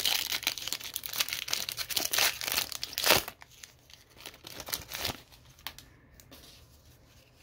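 Foil wrapper of a Topps baseball card pack being torn open and crinkled in the hands: a dense run of crackling for about three seconds, thinning to a few scattered rustles as the cards are slid out.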